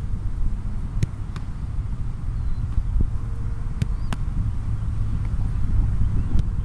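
Wind rumbling on the microphone, with several sharp thuds of a soccer ball being kicked and caught during goalkeeper drills.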